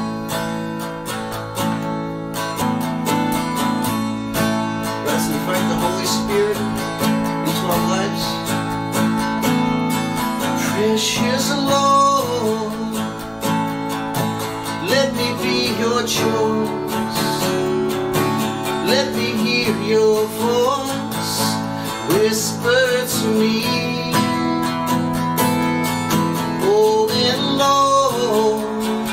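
Acoustic guitar strummed in a slow worship song, with a man singing the melody over the chords from partway through.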